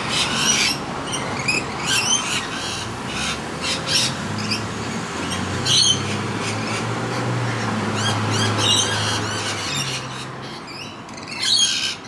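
Rainbow lorikeets screeching: many short, high squawks in quick, irregular succession from the feeding flock. A low hum runs underneath from about four to ten seconds in.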